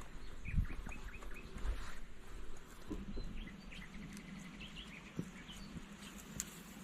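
Small bird chirping: a quick run of short high calls, then scattered single chirps. Two dull thumps near the start.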